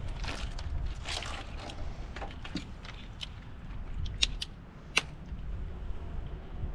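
Hand work in an engine bay: scattered rustling and light clinks, with two sharp metallic clicks about four and five seconds in.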